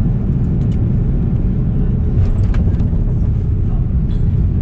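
Steady low rumble of an Airbus A330-300 heard from inside the cabin: engine and airflow noise, with a few faint clicks.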